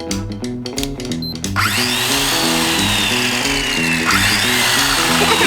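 Background music with a small electric motor whirring in about one and a half seconds in. Its whine falls slowly in pitch and starts again about four seconds in.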